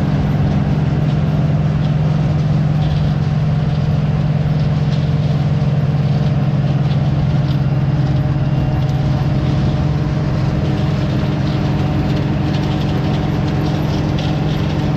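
Diesel engine of a Wirtgen SP 15 slipform paver running steadily while it slip-forms a concrete crash barrier: a constant low hum with faint ticks above it.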